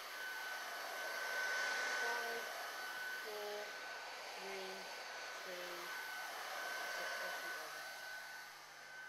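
Electric hot-air heat gun blowing steadily: a rush of air with a steady high fan whine. It swells louder about 1.5–2 seconds in and again around 7 seconds as the gun is swept around the part. It is post-heating a molded heat-shrink boot so the adhesive reaches full bond.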